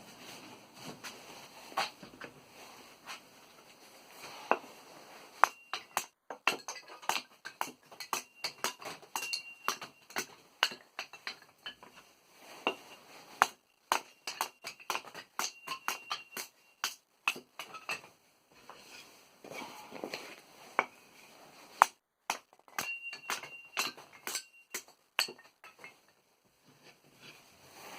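Kindling being split with a metal blade: a quick series of sharp wooden knocks and cracks, several of them followed by a short high ringing from the blade.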